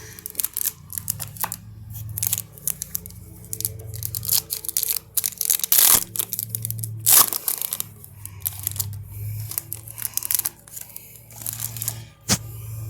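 A trading card pack wrapper being torn open and crinkled while cards are handled: a run of short crackles and rips, the loudest about six and seven seconds in, with a sharp click near the end.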